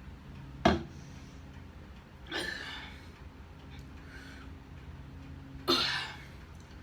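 A person taking two sharp, noisy breaths, about two and a half and six seconds in, winded from chugging a drink. A sharp knock a little under a second in is the loudest sound.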